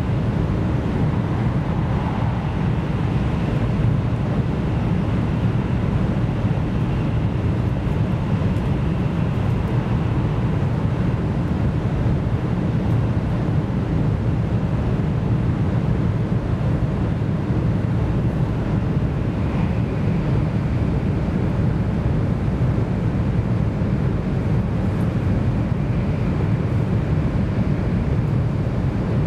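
Steady interior running noise of an N700S Shinkansen car travelling between stations: an even, low rumble from wheels on rail and the air rushing past, unchanging throughout.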